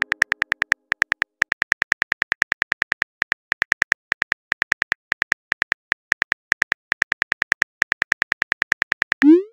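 Simulated phone-keyboard typing sound effect: rapid ticks, about eight a second, in runs with brief pauses, as a text message is typed. Near the end a short rising swoosh as the message is sent.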